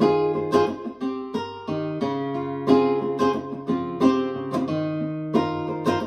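Acoustic guitar music, picked notes and strummed chords, played back through a KEF iQ1 bookshelf speaker.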